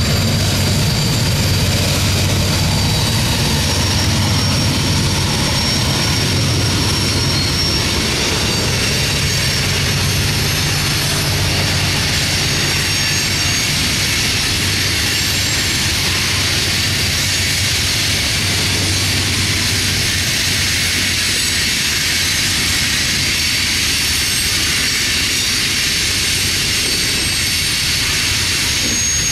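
Freight train passing: the diesel locomotives' engines drone steadily under power for roughly the first fifteen seconds, then ease off. What is left is the steady rolling noise of covered hopper cars going by on the rails.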